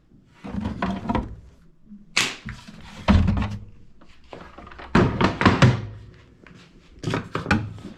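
A series of dull thunks and knocks, about five separate bouts, as things are handled and set down on a hard surface; the loudest come about three and five seconds in.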